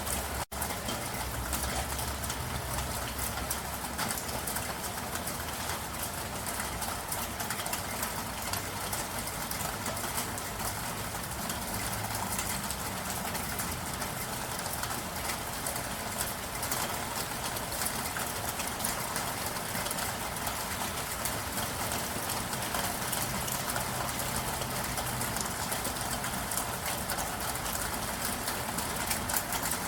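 Steady rain falling: an even hiss dotted with many small drop ticks, with a momentary break about half a second in.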